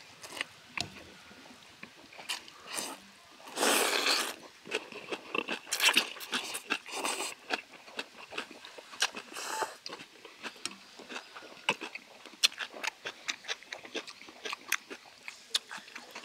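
Two people slurping thin wheat noodles in broth and chewing, with many short wet clicks and smacks of the mouth. Several slurps, the longest and loudest about four seconds in.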